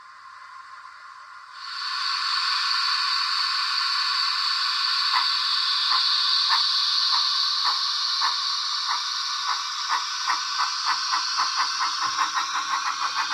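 Model steam locomotive's DCC sound decoder playing steam hiss, which starts a couple of seconds in. The hiss is then joined by exhaust chuffs that begin slowly and quicken steadily as the locomotive pulls away.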